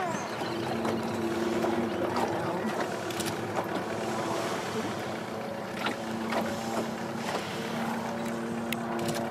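Small boat's motor running at low speed, a steady low drone, with wind and water noise.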